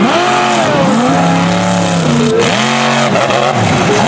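Mega truck's big engine revving hard under throttle, its pitch rising and falling back about four times as the driver works the pedal.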